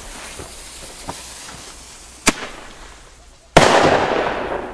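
A firecracker going off: a short sharp pop, then a loud bang about a second later that echoes and fades slowly.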